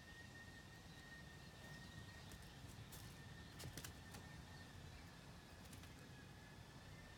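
Near-quiet outdoor background with a low rumble and a faint steady high whine. About two to four seconds in, a handful of faint dry clicks and crackles as a cat pounces through dry leaves and soil.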